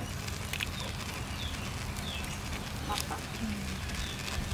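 Snails grilling in their shells over charcoal, their juices bubbling, with a run of short high falling squeaks and a couple of sharp crackles.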